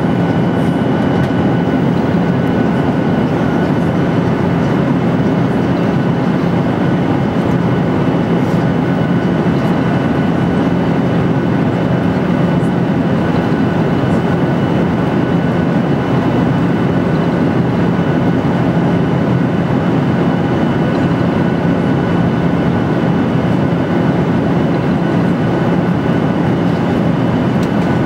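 Jet airliner cabin noise in flight: a steady rush of engine and airflow noise with a constant low hum and a faint high whine.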